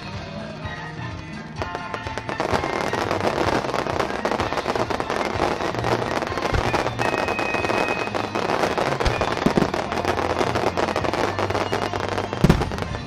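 Fireworks display: a dense barrage of crackling, popping bursts builds about two seconds in and carries on, with a sharper bang near the end. Music plays underneath.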